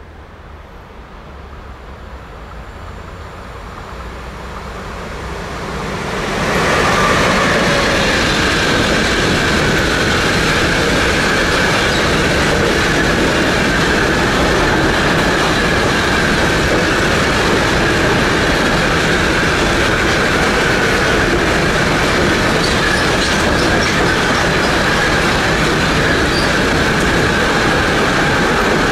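Electric-hauled freight train of enclosed double-deck car-transport wagons approaching and passing close by. A rumble grows over about the first six seconds, then the wagons roll past steadily with a constant high-pitched wheel squeal.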